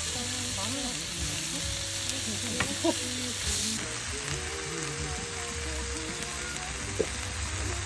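Food sizzling as it fries on a hot pan or grill: a steady hiss with a couple of small ticks.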